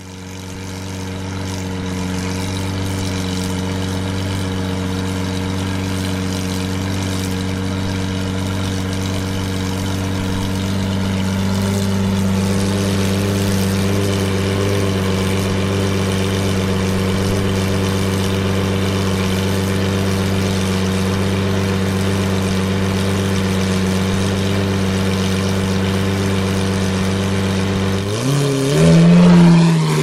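2009 Lamborghini Murciélago's V12 with an aftermarket exhaust idling steadily, its note shifting slightly about twelve seconds in. Near the end it is revved, the pitch rising and falling as the throttle is blipped.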